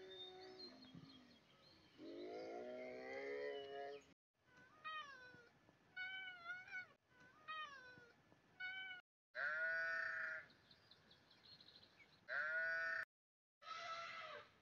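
A series of high, pitched animal cries that bend up and down in pitch: a longer cry about two seconds in, a run of short cries in the middle, then three louder cries near the end, with abrupt cuts between the stretches.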